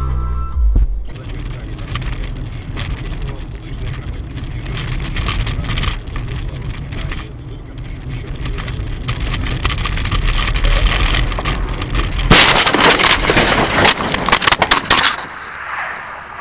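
Car driving, heard from inside: steady engine and road rumble with scattered knocks. About twelve seconds in comes a loud, noisy clatter of sharp knocks lasting about three seconds, then the level drops.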